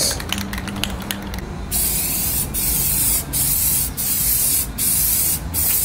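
Spray paint hissing from the nozzle in repeated bursts: a quick run of short taps in the first second or so, then longer sprays broken by brief pauses about every three-quarters of a second.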